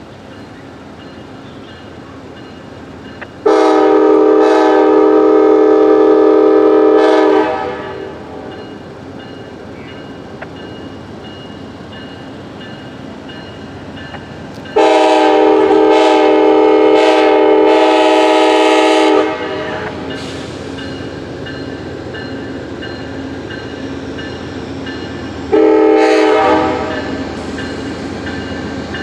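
Amtrak P42DC locomotive's air horn sounding the grade-crossing signal: a long blast about three seconds in, a second long blast about fifteen seconds in, and a short blast near the end, the standard long-long-short warning pattern for a crossing. Between the blasts the approaching train runs steadily.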